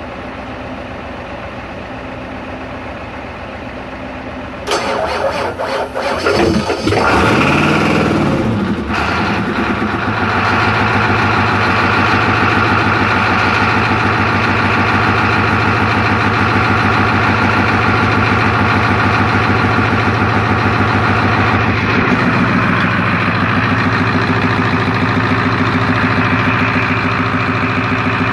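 Rebuilt Ford/International 7.3 IDI V8 diesel on an engine stand being started by jumping the starter solenoid. About five seconds in it cranks, catches and speeds up, then runs steadily for the rest, its note shifting a little about two-thirds of the way through.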